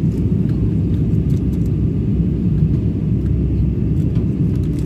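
Steady low rumble of an airliner cabin in flight: engine and airflow noise, unchanging throughout.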